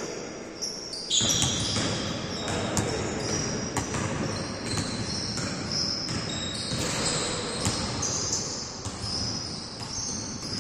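Basketball game on an indoor court: the ball bouncing and thudding on the floor and sneakers squeaking, echoing in a large hall. The hardest knock comes about a second in.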